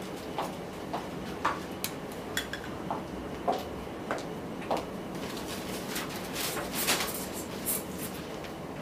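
High-heeled shoes clicking on a tiled floor, about two sharp steps a second, followed a few seconds in by a stretch of louder rustling and knocking as she settles into a folding chair.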